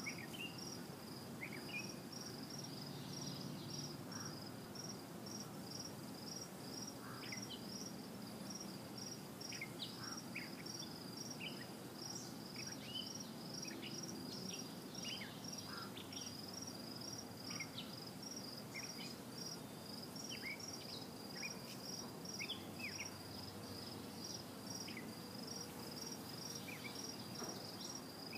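Low steady hum of a honeybee colony on open hive frames, with a high insect chirp repeating about two to three times a second throughout and scattered short high chirps.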